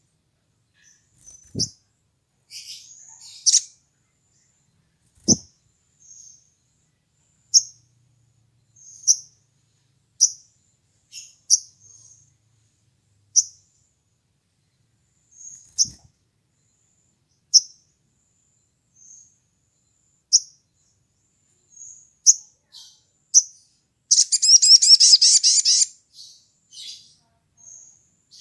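Olive-backed sunbird (sogon) giving short, sharp, high chirps every second or two, then a loud rapid trill lasting about two seconds near the end. A few soft knocks are heard early on.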